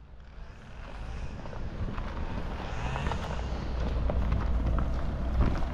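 Opel minivan driving slowly across a gravel clearing to park, its engine a low, steady rumble that grows louder as it comes nearer, with wind on the microphone.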